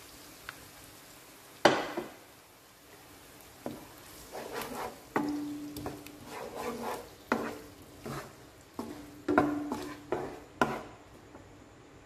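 A wooden spatula stirs and scrapes blended seasoning paste around a coated wok in hot oil, over a faint sizzle. A sharp knock about two seconds in is the loudest sound, then come uneven stirring strokes about once a second.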